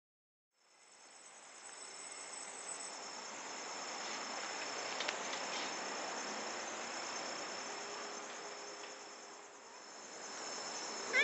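Crickets chirping in a night chorus: one steady high trill with a fast, even pulsing chirp above it, fading in during the first second.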